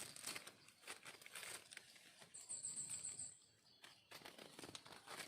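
Faint rustling and crackling, like handling in dry forest leaf litter, with a short run of about seven quick, high chirps about two seconds in.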